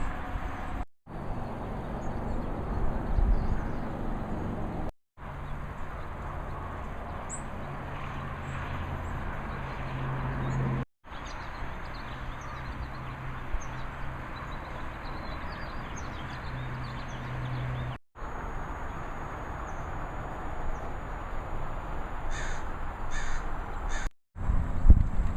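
Outdoor background noise with a low steady hum, broken by several abrupt edits, and a few short animal calls, likely crow-like caws, near the end.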